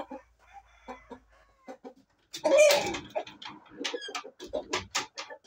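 Game roosters clucking, with one loud call about two and a half seconds in, amid knocks and shuffling.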